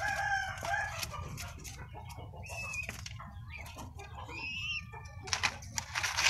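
A young albino dove flapping its wings while being hand-fed, with scattered rustling and clicks. There are two short wavering bird calls in the middle, and denser rustling near the end.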